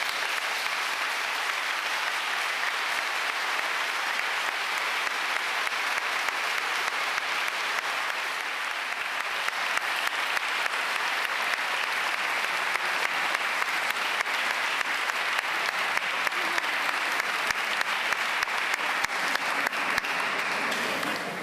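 Audience applauding, many hands clapping at a steady level, dying away right at the end.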